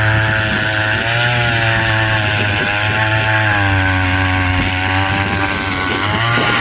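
Powered ice auger drilling through lake ice, its motor running steadily with the pitch sagging and recovering a few times as the blades bite.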